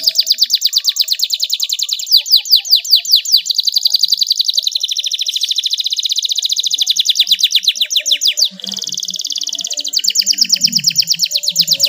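Canary singing a long unbroken song of fast rolling trills made of rapid down-slurred notes, with a few slower separate sweeping notes about two seconds in and a softer buzzy passage about two-thirds of the way through before the quick trills resume.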